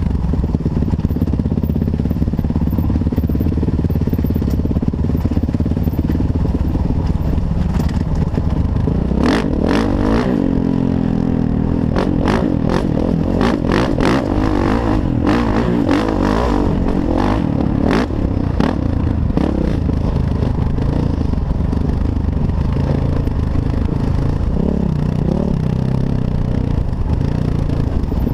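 Kawasaki KX450F single-cylinder four-stroke dirt bike engine running on a trail ride, its pitch rising and falling as the throttle is worked. A run of knocks and rattles from rough ground comes midway.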